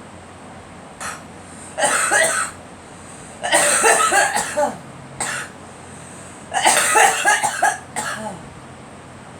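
A girl coughing in repeated fits: a short cough about a second in, then three longer bouts of several coughs each, with a single cough after the second and third bouts.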